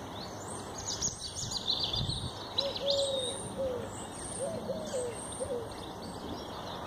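Small birds chirping and twittering in quick, high notes, busiest in the first half, with a few short lower notes in the middle.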